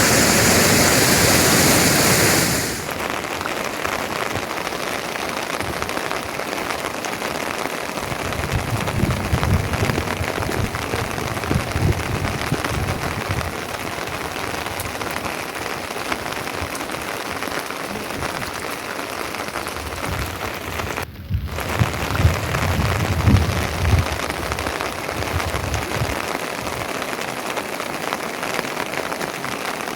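Steady rain falling, an even hiss with low rumbling at times. A louder rush of noise cuts off suddenly about three seconds in.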